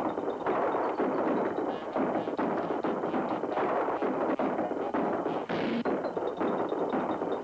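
Cartoon rifle gunfire: rapid shots fired without let-up, forming a dense, loud rattle broken by short gaps about once a second.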